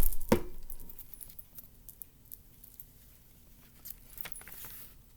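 Two knocks on a tabletop at the start, then faint paper rustling and small taps as a cut-out paper strip is glued and pressed onto a worksheet.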